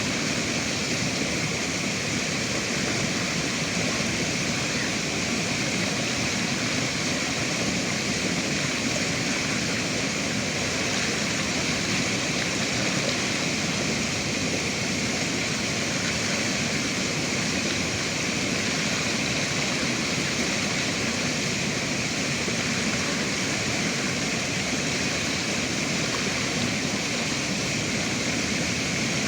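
Rushing river water, a steady, unbroken noise.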